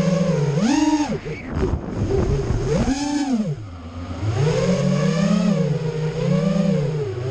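FPV racing quadcopter's electric motors whining, heard from the onboard camera, with the pitch swooping up and down as the throttle changes and dropping lowest about four seconds in.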